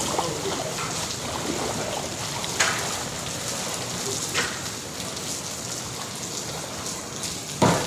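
Pool water splashing and sloshing as a person wades through it, with a sharper splash about two and a half seconds in and a louder one near the end.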